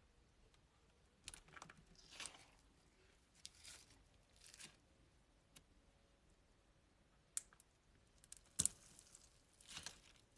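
Crunchy slime being pressed and pulled, giving short crackling, crunching bursts several times, the sharpest crack about three-quarters of the way through.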